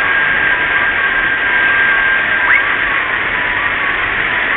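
Heavy rain on a moving car's windscreen and roof, heard from inside the cabin as a loud, steady noise. A thin, high steady tone runs through the first half and ends with a short glide about halfway through.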